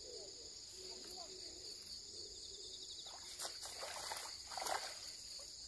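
Steady high drone of crickets or cicadas, with a hooked largemouth bass splashing and thrashing at the water surface from about three seconds in, several splashes, the loudest near the end.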